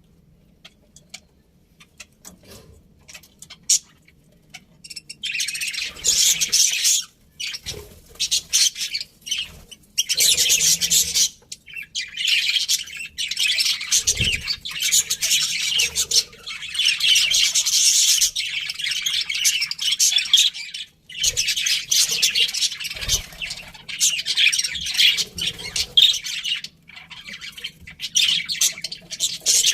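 Budgerigars chirping and chattering. For the first few seconds there are only a few faint ticks, then from about five seconds in a dense, high-pitched chatter comes in long bouts with short breaks.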